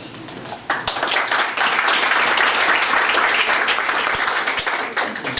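Audience applauding, starting about a second in and thinning out near the end.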